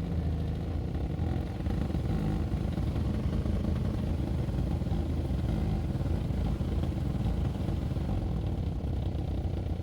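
VW Touareg interior A/C blower fan motor running steadily and loudly, with a rough, fluttering low rumble: the loud noise is the sign that the motor has been mounted incorrectly.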